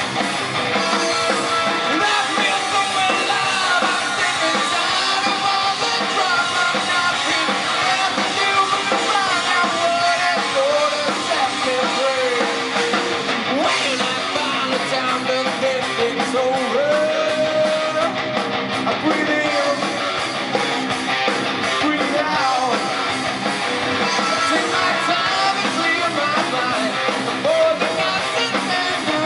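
Rock band playing live, electric guitar to the fore, with singing over it.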